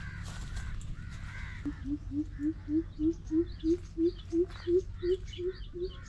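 Birds calling: a few arched caw-like calls in the first second and a half, then a steady run of short low hoots, about three a second, with fainter high chirps between them, over a low steady rumble.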